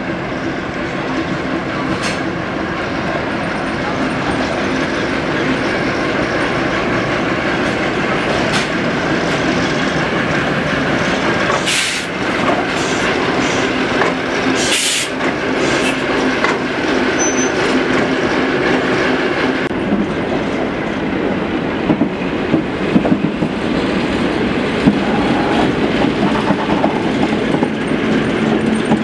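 Class 08 diesel shunter's English Electric six-cylinder engine running steadily as the locomotive draws a Class 52 Western diesel past at slow shunting speed. Two short sharp noises come about twelve and fifteen seconds in, and a run of clicks from the wheels crossing rail joints comes later.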